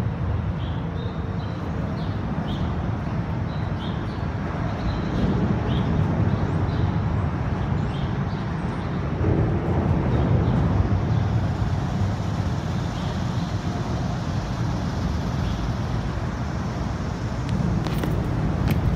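Steady low rumble of road traffic on the overhead highway, with faint high ticks scattered through.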